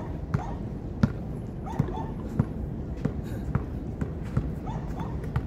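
Basketball bouncing on a hard court as it is dribbled: a series of sharp, irregular bounces, roughly one or two a second.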